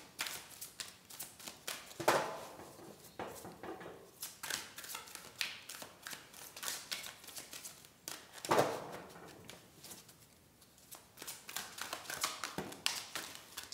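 A deck of oracle cards shuffled hand over hand: quick, irregular flicks and slaps of card stock, with two louder swishes, one about two seconds in and one past the middle.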